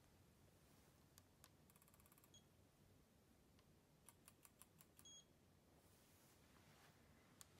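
iCare TonoVet Plus rebound tonometer taking a reading: a quick run of faint ticks ending in a short high beep, then about six faint clicks in a second as the probe rebounds off the dog's cornea, followed by another short high beep marking a finished measurement.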